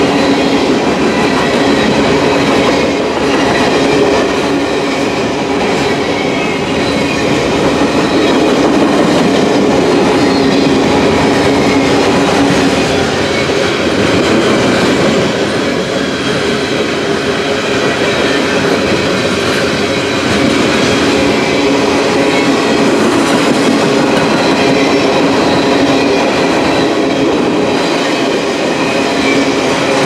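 Freight train of covered hopper cars passing close by: a steady, loud rumble and clatter of steel wheels on the rails, with faint steady ringing tones over it.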